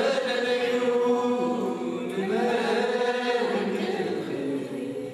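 A group of voices singing a slow church chant (mezmur) with long held notes that change pitch every second or so, dipping briefly near the end.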